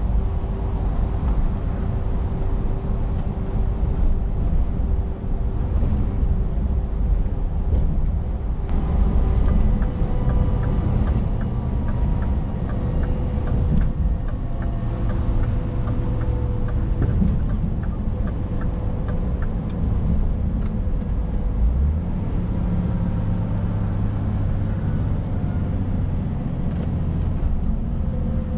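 Scania S460 truck's 13-litre six-cylinder diesel running at cruise, heard from inside the cab as a steady low rumble with road noise. A light, regular ticking, about two a second, runs for some ten seconds in the middle.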